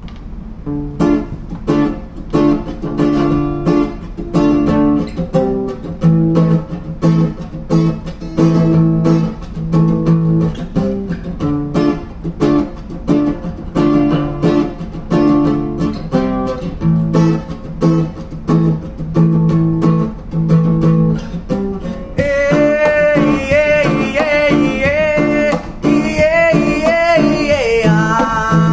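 Classical guitar strummed in a steady rhythm of chords. A man's voice comes in singing over it near the end, holding wavering notes.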